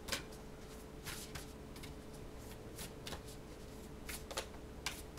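A deck of reading cards being shuffled by hand: short, soft card slaps and rustles at irregular intervals, about one a second.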